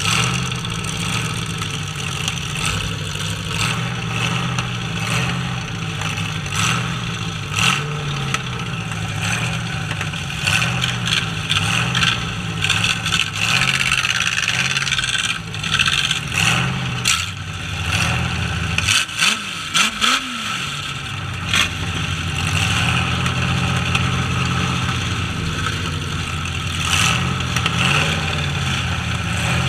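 Demolition derby trucks' engines running and revving hard, with sharp bangs and clatter of crashes here and there. Near the two-thirds mark one engine briefly dips and revs up twice.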